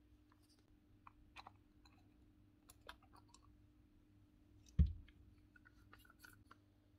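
Faint scattered clicks and light knocks of metal and plastic parts being handled as a DeWalt impact driver's motor and gear housing are taken apart, with one louder knock a little under five seconds in.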